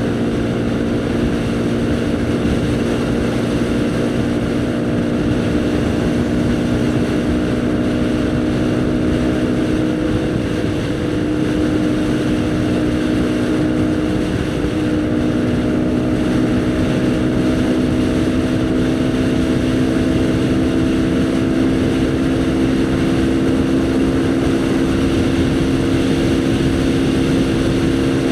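Haojue NK150's single-cylinder engine running while riding, with wind rushing over the microphone. The revs ease off briefly around ten seconds in, then climb slowly toward the end.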